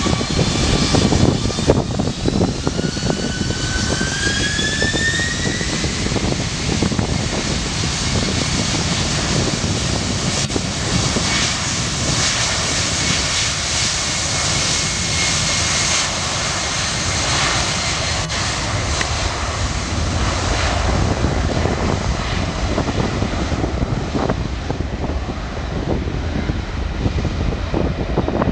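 Boeing 767-300F freighter's twin jet engines at takeoff: a whine rises in pitch over the first six seconds as the engines spool up, then a steady jet roar as the aircraft rolls down the runway.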